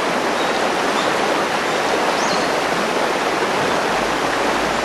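River water rushing, a steady even noise of flowing water.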